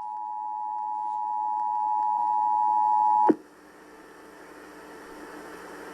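Emergency Alert System two-tone attention signal (853 Hz and 960 Hz sounded together), a steady dual tone growing louder, cutting off with a click a little over three seconds in. Faint broadcast hiss follows.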